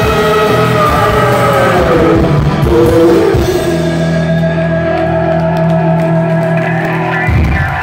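Rock band playing live, with electric guitars, bass and drums at full volume. About halfway through, the band settles on one long held chord that rings until it stops just before the end, closing the song.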